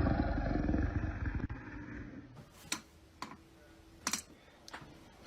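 A loud, rumbling noise fades out over the first two seconds, then four short, sharp clicks follow, spaced half a second to a second apart.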